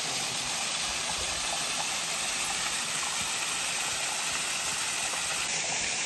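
Small waterfall spilling down a rock face into a shallow pool: a steady, even rush of falling water.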